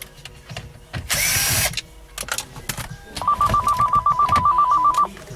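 Telephone ringing with an electronic trill: one ring about two seconds long, warbling rapidly between two tones, starting a little past the middle. A short loud hiss comes about a second in.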